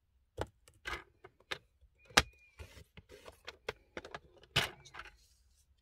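A paper trimmer and paper being handled: irregular clicks, taps and paper rustling as a pencil is set down, the sheet is slid into line and the trimmer's plastic arm is moved. A single sharp click stands out about two seconds in.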